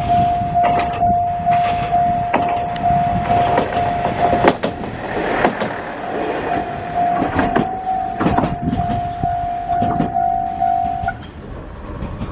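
Level-crossing warning bell ringing in rapid repeated tones while a diesel railcar passes over the crossing, its wheels knocking over the rail joints at uneven intervals over a low rumble. The bell stops about eleven seconds in.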